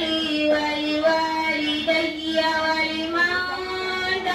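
A girl reciting the Quran in melodic tajweed chant, holding long drawn-out notes with slow melodic turns.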